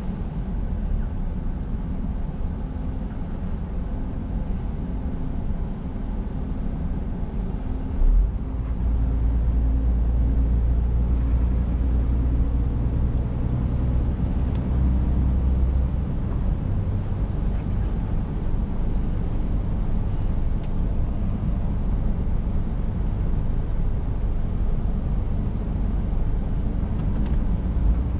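Scania S460 truck's 13-litre inline-six diesel running under way, heard inside the cab over steady road and tyre noise. A short thump comes about eight seconds in, and the low engine drone is stronger for several seconds after it.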